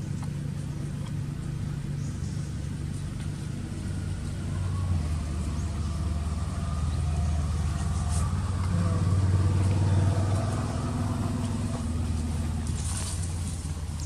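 A motor vehicle's engine running with a steady low hum. It grows louder from about a third of the way in, is loudest past the middle, and eases off toward the end.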